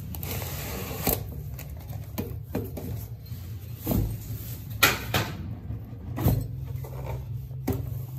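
Hands unboxing a shrink-wrapped cardboard product box: the plastic wrap rustles and is pulled off, and the box lid is lifted open, with several sharp taps and scrapes along the way.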